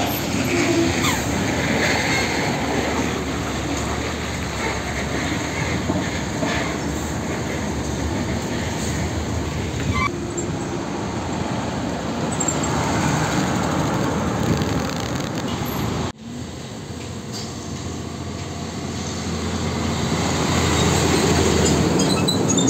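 Heavy diesel trucks passing on a road: engines running and tyres on the asphalt in a steady rumble. The sound breaks off sharply about sixteen seconds in, then builds to its loudest near the end as a truck runs close by.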